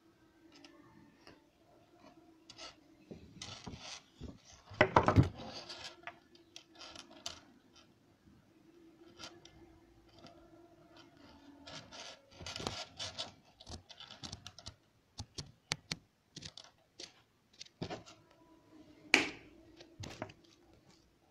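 Handling noise from wires and small electronic components being moved and bent on a wooden tabletop: scattered light clicks and scrapes, with louder rustling scrapes about five seconds in and again near the end.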